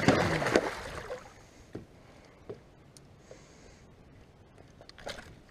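A musky thrashing in a landing net at the water's surface, a loud splash in the first second that dies away into a few faint knocks and drips. A brief splash comes again near the end.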